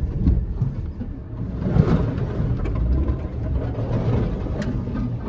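Nissan X-Trail driving slowly over a rough, muddy off-road track: a steady low engine and tyre rumble, swelling about two seconds in, with a few sharp knocks from the bumpy ground.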